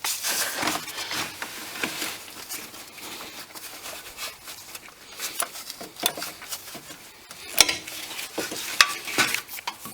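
An oil filter wrench being worked loose and pulled out of the engine bay. There are scattered scraping and rustling noises with light metal clicks, and a couple of sharp clinks near the end.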